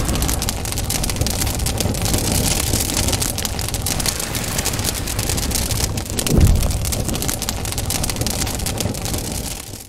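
Fire-and-water sound effect for an animated intro: dense crackling and hissing, like flames being doused, with a deeper surge about six and a half seconds in. It cuts off suddenly at the end.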